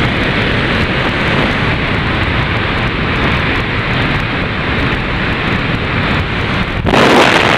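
Steady rush of a jump plane's engine and slipstream at the open door. About seven seconds in it jumps to a louder, harsher blast of wind on the microphone as the skydivers leave the aircraft.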